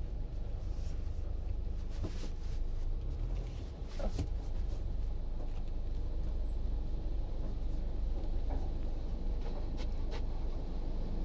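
A car's engine running, heard from inside the cabin as a steady low rumble, with a few light clicks and knocks scattered through it.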